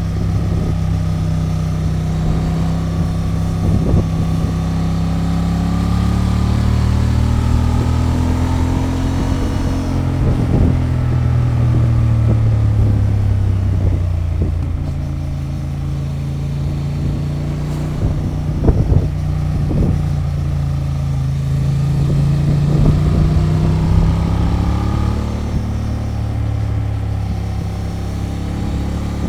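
2023 Honda XL750 Transalp's 755 cc parallel-twin engine through its stock exhaust while riding, its note rising and falling gently as the bike speeds up and eases off a few times, with a few short knocks.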